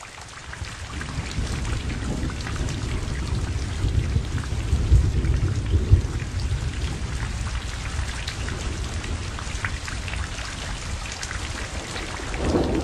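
Dark soft drinks poured from plastic bottles into thin plastic cups, a dense crackling patter of liquid, over a steady low rumble.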